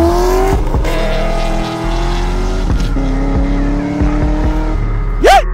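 Cammed 6.0-litre V8 of a Pontiac GTO accelerating past and away. Its pitch climbs and drops back at each gear change, over a music track with a steady bass beat. A short, loud squeal comes near the end.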